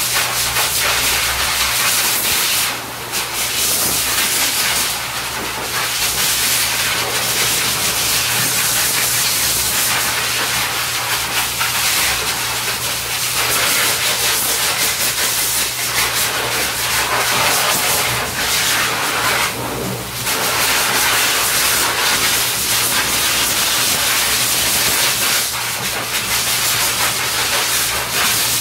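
Pet grooming hose dryer blowing air onto a puppy's coat: a loud, steady hiss of rushing air over a low hum, dipping briefly twice.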